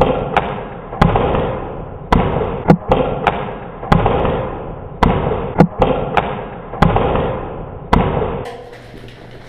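Footsteps crunching on rough ground at a walking pace, about one a second, each step fading slowly, with sharp clicks in between from the player's gear.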